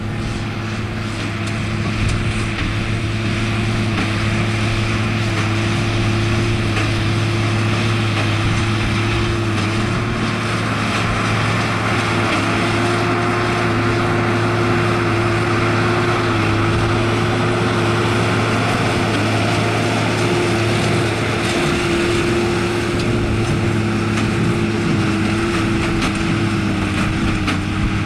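Valtra tractor's diesel engine running steadily under load, driving a New Holland BB9060 large square baler as it picks up hay. The engine pitch dips slightly now and then.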